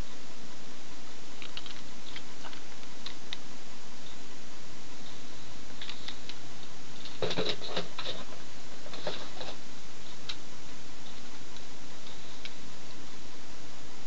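Light clicks and taps over a steady hiss, most of them bunched together about seven to nine and a half seconds in.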